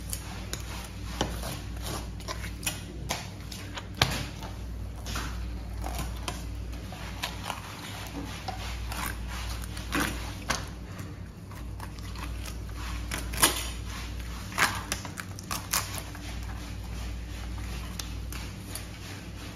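Knife filleting a sea bream on a plastic cutting board: irregular taps, scrapes and knocks as the blade works through flesh and along the bones, with a few sharper knocks. A steady low hum sits underneath.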